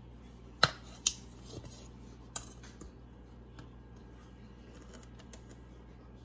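Kitchen utensils and dishes being handled: three sharp clinks in the first two and a half seconds, then a few faint taps.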